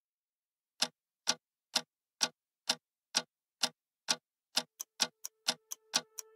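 Clock ticking at a steady two ticks a second, then about four a second for the last couple of seconds, as a faint held tone enters underneath: the ticking intro of a song.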